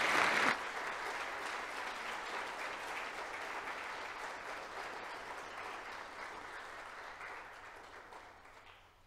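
Congregation applauding, loudest in the first half second, then steadier and gradually fading out near the end.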